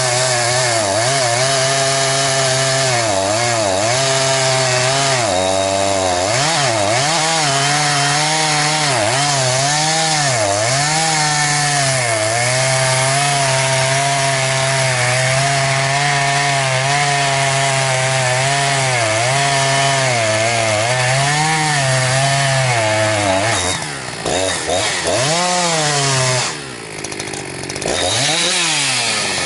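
A 272-class two-stroke chainsaw running at high revs while cutting wood, its engine note dipping briefly under load again and again. In the last few seconds the revs fall away and pick up several times as the throttle is let off.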